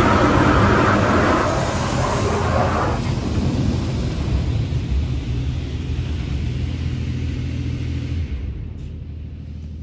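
Spray from a Wash World Razor automatic car wash hitting a truck: a loud hiss for about the first three seconds, then a softer hiss that stops about eight seconds in, over a low steady hum.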